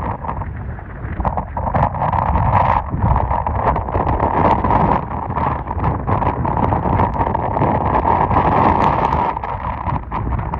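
Gale-force wind buffeting the microphone: a loud, gusting rumble that rises and falls without a break.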